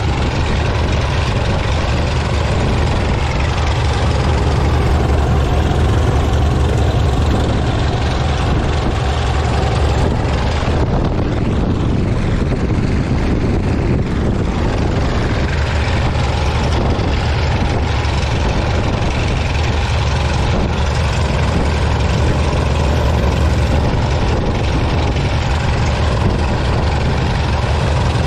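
Single-engine light aircraft's piston engine and propeller running steadily at low taxi power, heard close up from the airframe.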